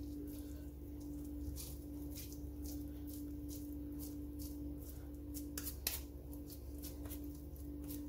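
Oiled hands pressing and patting a sticky minced beef and lentil kebab mixture into patties: soft, irregular sticky clicks, with a sharper click about six seconds in, over a steady low hum.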